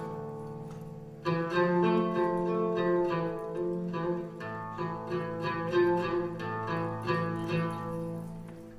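Music on a plucked string instrument: a chord rings and fades for about a second, then a lively phrase of quickly plucked notes begins over a steady low drone.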